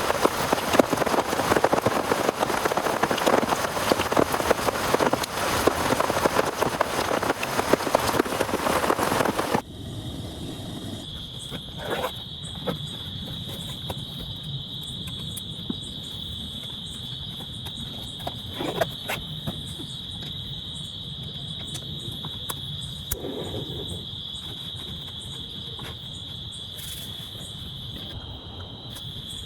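Heavy rain falling steadily, cut off abruptly about ten seconds in. A steady high-pitched cricket chorus follows, with a few faint knocks.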